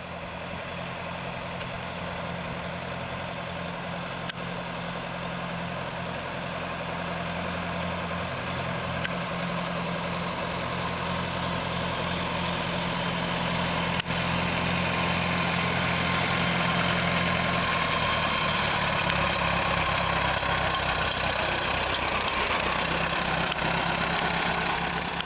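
1948 Case VAI tractor's gasoline four-cylinder engine running steadily at low speed, growing louder as the tractor approaches. Its note changes in the last third as it draws close.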